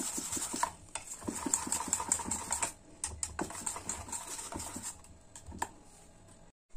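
Thick bajji batter being beaten in a steel bowl, first by hand and then with a wire whisk: rapid wet slapping and squelching strokes, with a short lull about three seconds in and quieter strokes near the end before a sudden cut.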